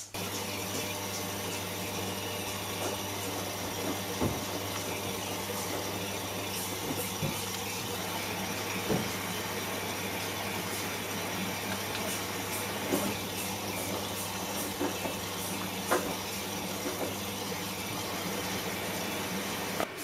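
Front-loading washing machines running a wash cycle: a steady rush of water with a low motor or pump hum and a few light knocks.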